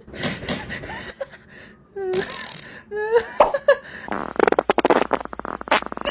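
A pet's fart: a buzzy run of rapid pulses starting about four seconds in and lasting nearly two seconds.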